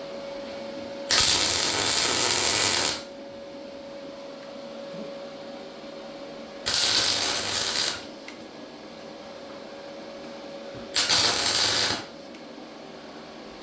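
A MIG welder laying three tack welds, each a steady crackling hiss. The first lasts about two seconds, and the next two are shorter, about a second each.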